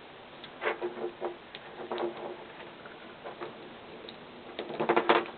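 Small plastic model-kit parts clicking and tapping as they are handled and fitted together, a few scattered clicks and then a quick, louder cluster near the end.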